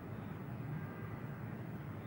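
Steady low background hum of room tone, with no distinct event.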